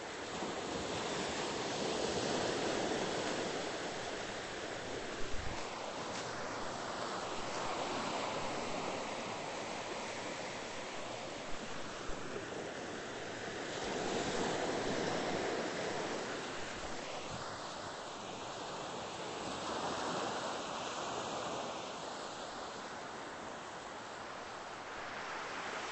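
Ocean surf breaking and washing up the beach, swelling and fading about every six seconds, with a few brief knocks in between.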